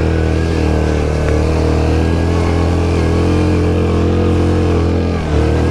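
Yamaha Grizzly 700 ATV's single-cylinder engine running steadily under load while climbing a steep snowy slope in four-wheel drive with the differential locked, dipping briefly near the end.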